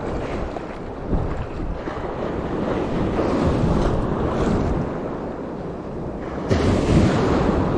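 Surf washing in at the shoreline, with wind buffeting the microphone; the wash swells about three seconds in and again more strongly near the end.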